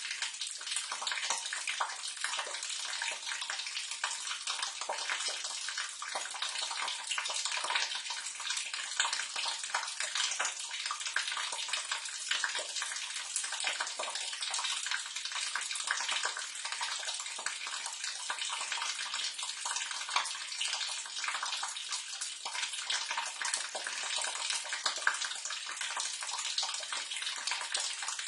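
Sewage water running and splashing in a sewer drain: a steady, hissy, spattering rush with little low end.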